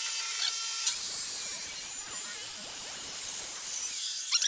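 A stainless steel exhaust pipe being handled and set in the vise of a chop saw, with light rubbing and clicks of metal over a steady hiss. A few sharp squeaks come near the end.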